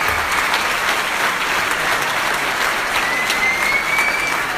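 Large theatre audience applauding steadily. A thin tone rises slightly in pitch about three seconds in.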